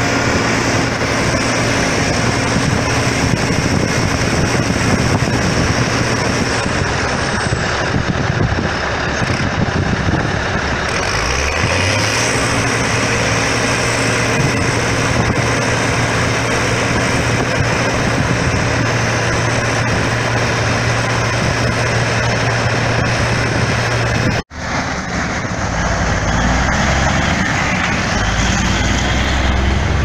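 Case IH 1666 combine running under load while harvesting corn: a steady engine and threshing-machinery drone. About 24 seconds in the sound cuts off sharply and gives way to a J.I. Case 730 Comfort King tractor engine running as it pulls a grain cart, its pitch stepping up and down.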